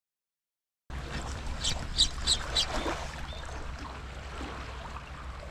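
A moment of silence, then shoreline ambience: wind rumbling on the microphone and sea water moving against rocks, with about four quick, sharp ticks shortly after it starts.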